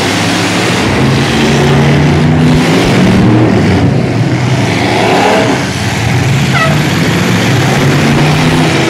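Several demolition-derby pickup truck engines running and revving together, loud, their pitch rising and falling.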